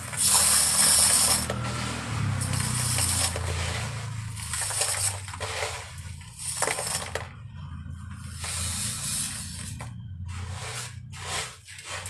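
Handfuls of dry, gritty black concrete mix poured onto a stainless steel plate: a rattling hiss of grains pattering on metal, in a string of separate pours, the first one the loudest.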